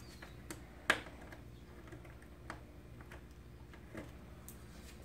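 A few sparse light clicks and taps of fairing fasteners and hand tools being handled, the sharpest about a second in, over a faint low hum.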